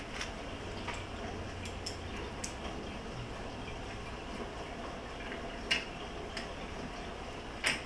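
Small metal parts being handled while a screw is fitted with an Allen wrench: scattered short metallic clicks and taps, with two louder clicks late on.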